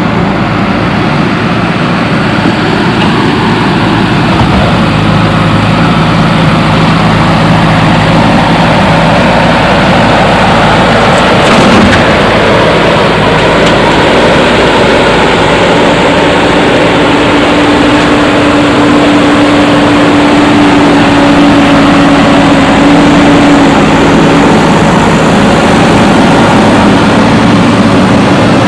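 Heavy machinery running steadily, with a low hum and a steady tone that holds for about ten seconds in the middle, and a single knock about twelve seconds in.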